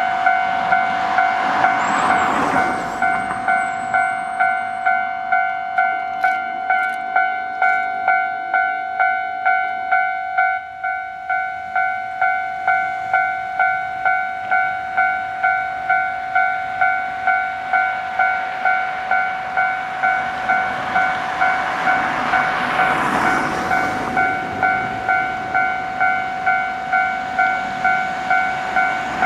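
Japanese railway level-crossing warning bell ringing in a steady electronic ding, about two strikes a second. Trains passing swell up in rushing noise about two seconds in and again near the end.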